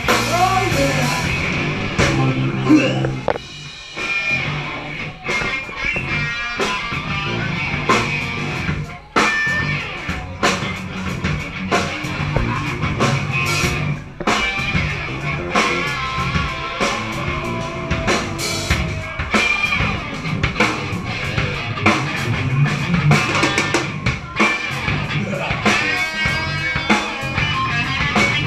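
Live rock band playing an instrumental section: drum kit and electric bass keeping a steady beat while an electric guitar plays a lead line with bent notes.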